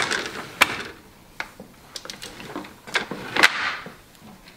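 Wooden hand loom being worked: about six sharp wooden knocks and clacks at uneven intervals, from the beater and shuttle, with brief swishing sounds between them.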